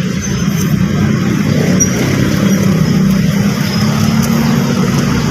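A motor running steadily: a continuous low drone.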